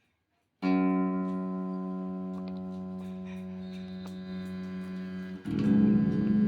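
Electric bass guitar played through an amplifier while its faulty volume control is being tested. A plucked note rings and slowly fades, then about five seconds in a new, louder note sounds with a wavering pulse.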